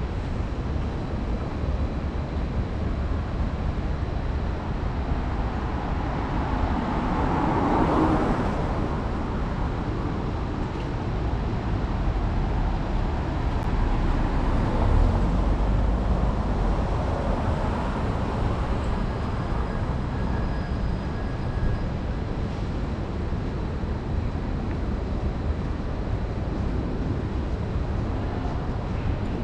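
Road traffic ambience: cars passing on the road over a steady low rumble, one swelling past about eight seconds in and another, lower and heavier, around fifteen seconds in.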